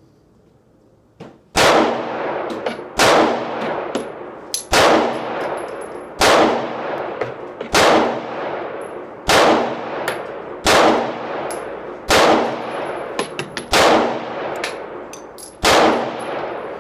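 SCCY CPX-2 9mm pistol firing about ten shots at a steady pace, roughly one every one and a half seconds, each shot ringing on in the roofed shooting shelter. The pistol cycles shot after shot without a stoppage, the tail end of a 40-round string the shooter calls flawless.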